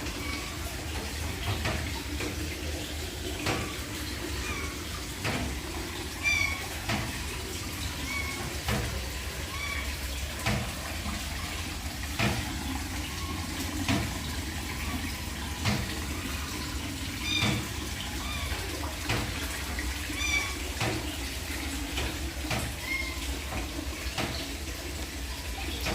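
Munchkin kitten mewing over and over, short high mews coming every second or two.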